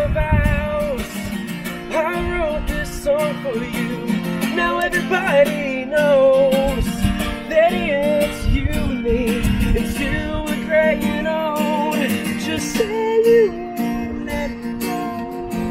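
Acoustic guitar strummed, with a singing voice carrying a wavering melody over it: a song.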